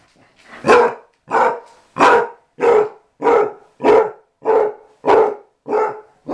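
Basset hound barking over and over at an even pace, about ten sharp barks, roughly one every two-thirds of a second.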